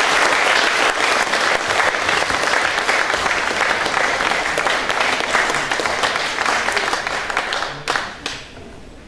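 Audience applauding in a dense, steady patter that dies away about eight seconds in, with a last few single claps.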